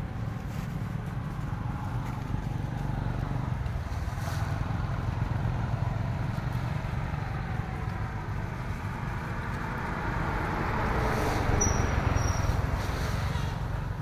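A motor vehicle engine running, heard as a steady low rumble with a faintly shifting pitch that swells toward its loudest about eleven to twelve seconds in. A brief high whistle sounds twice in quick succession near the end.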